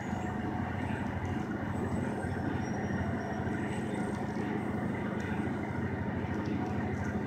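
City transit bus's engine running steadily, heard from inside the passenger cabin as an even low drone.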